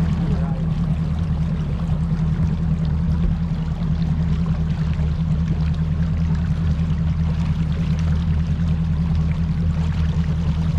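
A boat motor running steadily at a constant low hum, with water rushing past.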